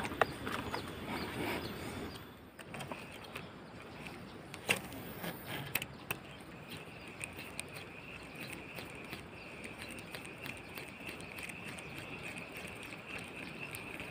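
Quiet riverside ambience with a few sharp clicks about five seconds in. From about halfway there is a steady high-pitched buzz.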